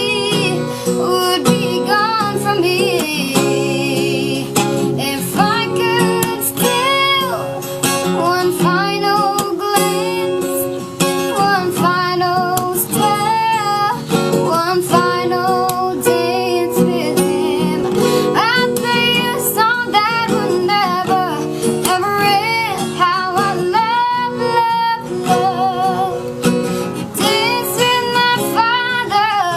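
A child singing a melody with wavering vibrato on held notes, accompanied by acoustic guitar.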